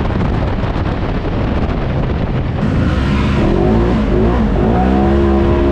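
Polaris RZR XP 1000 side-by-side's twin-cylinder engine running hard on a dirt trail under a loud rushing noise. From about halfway its note climbs in several rising glides as the throttle opens, then holds steady near the end.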